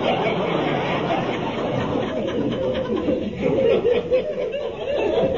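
Studio audience laughing, a long, steady wave of laughter.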